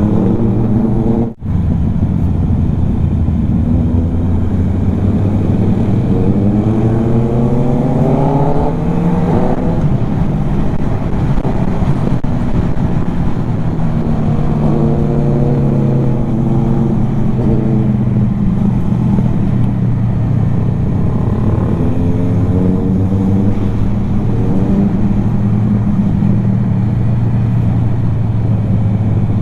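Motorcycle engine running under way, its pitch climbing and falling back several times as it accelerates and shifts through the gears.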